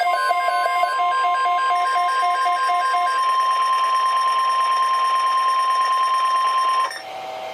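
NOAA Weather Radio alert tone, a steady single high-pitched tone of about 1050 Hz held for about seven seconds and then cutting off, the alarm that signals a watch or warning broadcast, here a flood watch. For the first three seconds a pattern of short pulsing tones plays beneath it; after the cut there is only quiet radio hiss.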